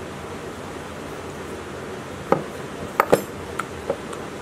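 Diesel engine cylinder head and its valves being handled on a workbench: a handful of short metal clinks and knocks in the second half, the loudest pair about three seconds in, over a steady background hiss.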